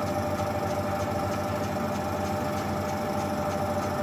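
Metal lathe running steadily at slow speed, its motor and gears giving a steady hum with a faint regular ticking, while a tailstock die is backed off a freshly cut bolt thread.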